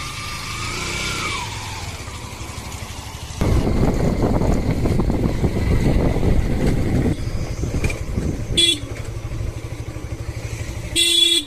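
Motorcycle on the road, with a steady low engine hum and a loud rushing noise that starts suddenly about three seconds in. A vehicle horn toots briefly near the end, twice.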